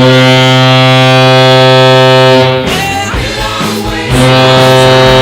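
Toronto Blue Jays horn, a deep air horn, sounding two long blasts. The first lasts about two and a half seconds. The second starts about a second and a half later and is still going at the end.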